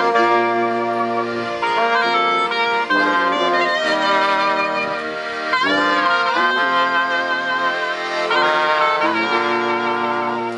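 Small ensemble of clarinet, trombone, sousaphone and piano accordion playing a Brazilian Protestant (CCB) hymn together in held, sustained notes, several with vibrato.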